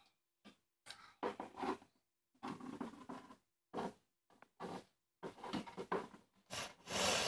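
Scattered rustles and light scrapes of hands moving small plastic dolls and toys about on a wooden shelf, coming in short irregular bursts with silent gaps between, louder near the end.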